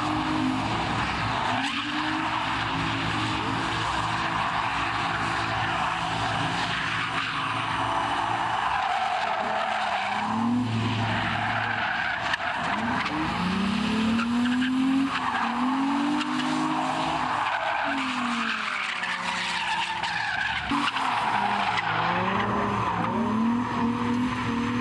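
Drift cars sliding around the track: engines revving up and down again and again over a continuous hiss of skidding, squealing tires.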